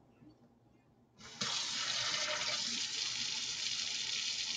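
Kitchen faucet turned on about a second in, its water stream running steadily into an empty stainless steel sink as the sink starts to fill.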